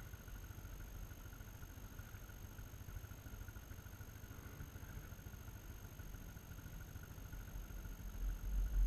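Faint, steady low rumble of a distant off-road vehicle's engine idling, with a louder low rumble near the end.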